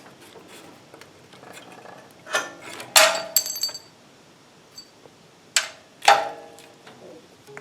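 Metal clinks and clanks as hand tools and a small engine's sheet-metal cover are handled, about four separate knocks; the loudest, about three seconds in, rings briefly.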